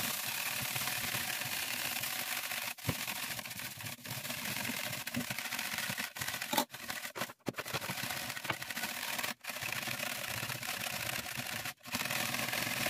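Wire whisk rattling and scraping against the sides of a plastic measuring jug while it stirs a salty vinegar brine to dissolve the salt. The whisking runs on steadily, breaking off briefly a few times.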